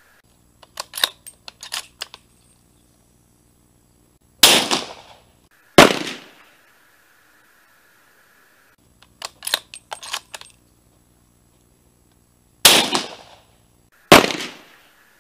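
Ruger American Ranch Rifle in .300 Blackout: a quick run of small metallic clicks as the bolt is worked, then two loud shot reports a little over a second apart, each ringing out briefly. The whole sequence happens twice.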